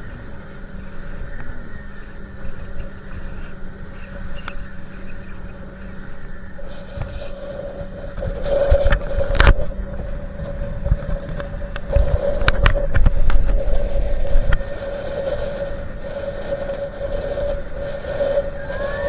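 Motorboat engine running at a steady pitch, with loud low buffeting over the microphone twice, from about eight and about twelve seconds in, and a few sharp knocks.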